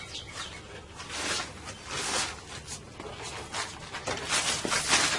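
Rubber windshield molding being pressed and worked around the edge of the glass: a series of short rubbing swishes at uneven intervals.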